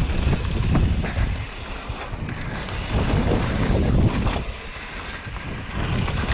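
Wind buffeting the microphone over low rumbling tyre and trail noise from a downhill mountain bike being ridden, the level rising and falling.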